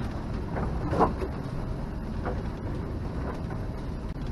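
Steady low rumble of wind and sea with the engine running, on a small sailboat motor-sailing into a head wind and waves, with a few faint short knocks.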